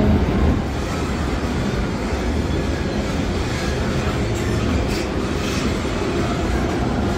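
A train running on the tracks: a steady low rumble of wheels on rail.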